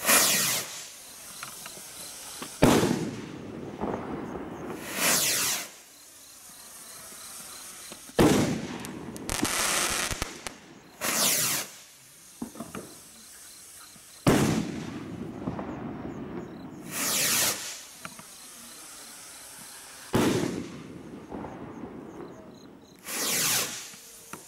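Firework rockets from a six-shot assorted pack being fired one after another. Each goes up with a rushing whoosh, followed a few seconds later by a sharp bang as it bursts. The bangs come about every six seconds, four in all.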